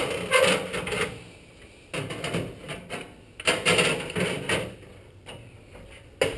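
Aluminium diamond-plate generator box being handled, its metal lid rattling in several short bursts, then one sharp bang near the end as the lid is shut.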